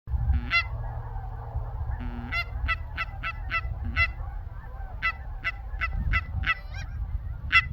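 Canada geese honking repeatedly, many short calls in an irregular string, over a steady low rumble.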